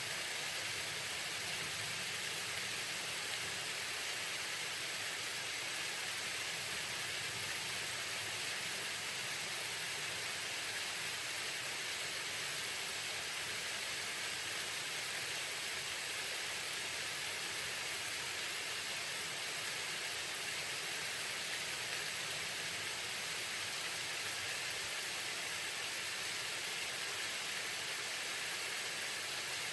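Waterfall: a steady, even hiss of falling water.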